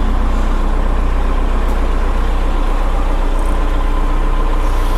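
Wheel loader's diesel engine running steadily.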